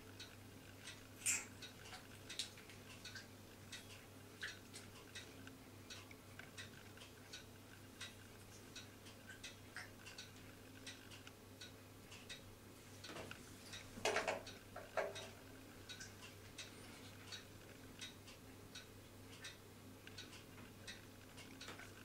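Faint, regular ticking, about two ticks a second, like a clock. About two-thirds of the way through come a few louder clicks and a short rustle.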